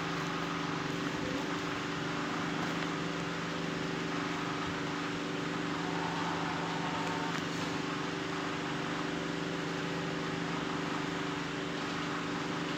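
A steady low hum of several held tones over an even hiss, unchanging throughout.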